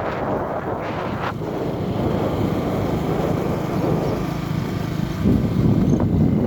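A vehicle driving with its engine running steadily, and wind buffeting the microphone.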